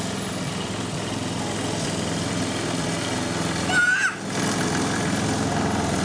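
Craftsman gas walk-behind lawn mower engine running steadily, with a brief high squeal about four seconds in.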